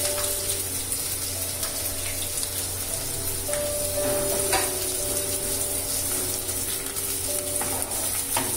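Chopped onions sizzling as they fry in hot mustard oil with whole spices in a kadai, with a few scrapes of a wooden spatula as they are stirred. Soft background music plays along.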